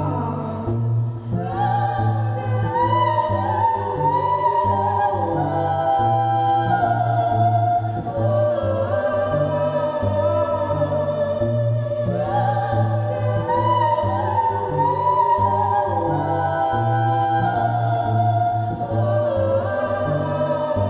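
A woman singing long held notes that slide between pitches, over low sustained cello notes.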